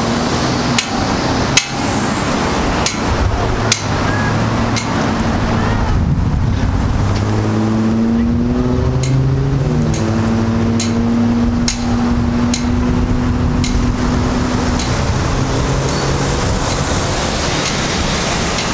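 Street traffic with wind rumbling on the microphone. A vehicle engine runs through the middle, its note rising slowly and then dropping sharply about halfway. Sharp clicks sound roughly once a second.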